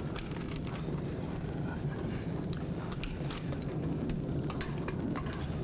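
Steady low rumbling background noise with faint, scattered ticks and crackles over it, the kind of dull din that stands for distant bombardment in a war film.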